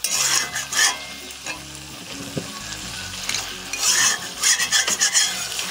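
A spatula stirring and scraping mutton and thick spiced masala around a hot kadai, with the mix sizzling as it is kasha-fried. Scraping strokes come in two bouts, one at the start and one about four seconds in.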